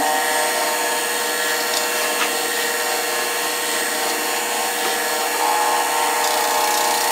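JET 10-20 Plus drum sander running steadily together with its dust collector, a constant machine hum with a steady whine over it. It gets slightly louder about five and a half seconds in, as a board is fed under the drum to be sanded to thickness.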